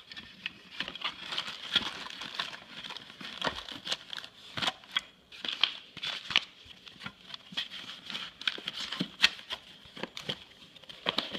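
Packaging being handled during an unboxing: crinkling and rustling with irregular small clicks and taps.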